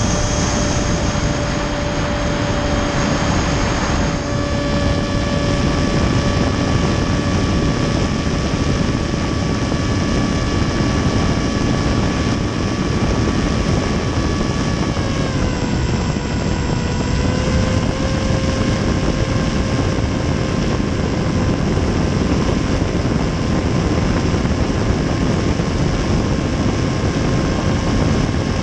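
HobbyZone AeroScout S RC plane's electric motor and pusher propeller whining at a steady throttle, heard from a camera strapped to the plane, over heavy wind rush. The pitch drops slightly about fifteen seconds in, then holds.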